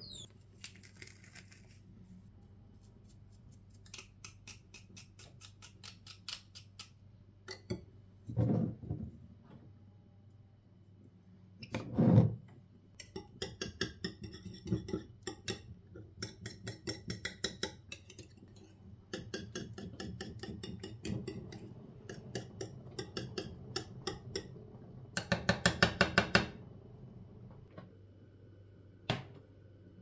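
A small wire whisk beats a thick mixture in a glazed ceramic bowl, making rapid metal-on-ceramic clicking in runs of several strokes a second. There are dull knocks about 8 and 12 seconds in, the second the loudest sound.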